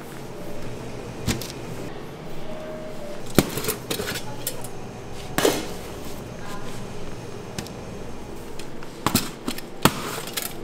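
Scattered knocks and clicks of hands-on work in a bakery, over a steady background noise.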